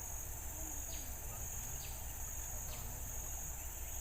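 Riverside insect chorus: a steady high-pitched shrill pulsing about twice a second, with faint short falling chirps about once a second and a low rumble underneath.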